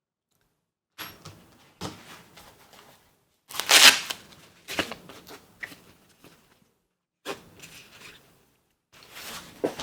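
Rummaging for a tool: small objects being picked up and moved about, in separate bursts of clattering and rustling. The loudest burst comes about three and a half seconds in.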